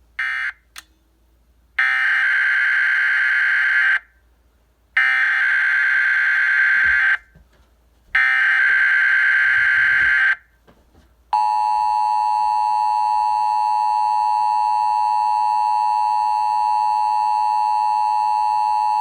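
Emergency Alert System SAME header: a short data blip, then three screeching digital data bursts of about two seconds each, a second apart. They are followed by the steady two-tone EAS attention signal, held for about eight seconds, which announces a new warning.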